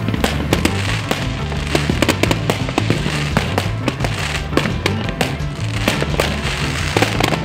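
Aerial fireworks shells bursting in a rapid, irregular string of bangs and crackles. Music with a steady bass line plays underneath.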